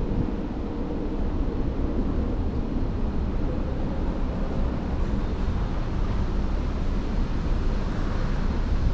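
Steady low rumble and rush of wind on the open deck of a cruise ship under way at sea.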